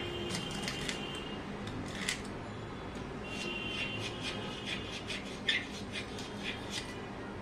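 Thin metal tool scraping and clicking against an old stainless-steel floor drain frame and the cement and tile around it as the drain is pried loose, with irregular sharp ticks and a few brief high squeaks.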